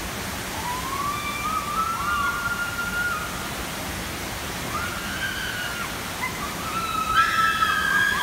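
Water rushing steadily down a large funnel water slide, with high-pitched screams from riders rising over it a few times, the loudest near the end as a raft comes down the chute.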